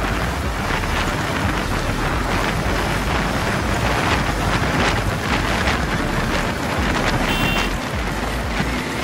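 Heavy wind rushing over the microphone of a motorcycle at highway speed, with the bike's engine running underneath as it speeds up to about 100 km/h.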